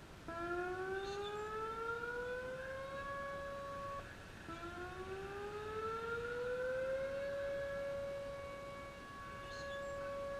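Whelen WPS-4004 electronic siren sounding a tone that rises for about three seconds and then holds steady. It cuts off about four seconds in, then rises again and holds, swelling and fading slightly.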